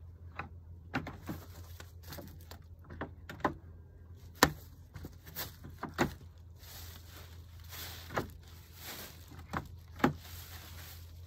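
Wooden pallet collars with metal corner hinges knocking and clunking as they are pushed down and shifted underfoot. The knocks are irregular and sharp, about a second apart.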